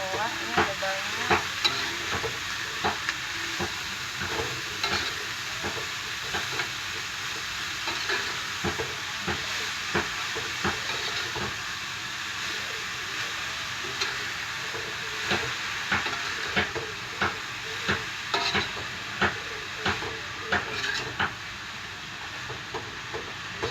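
Noni leaves and small anchovies sizzling as they are stir-fried in a pan, with a utensil repeatedly scraping and knocking against the pan at irregular intervals.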